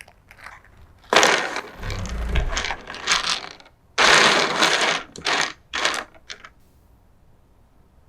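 Small hard plastic keyboard parts and their packaging being handled, rattling and rustling in several bursts. The loudest bursts start about one second and four seconds in, with a low thump around two seconds in, and it goes quiet after about six and a half seconds.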